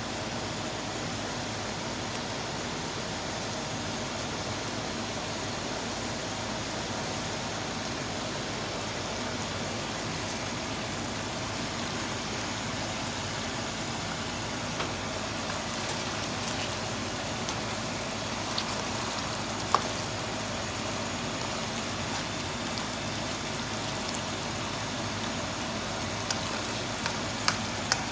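Chicken, potato and cabbage stew simmering in a wok on a gas stove: a steady hiss with a faint hum under it, and a few small pops and clicks in the second half.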